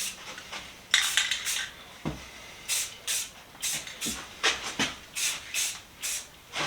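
Aerosol spray-paint can laying on a quick coat of gloss paint in short spray bursts, about two a second.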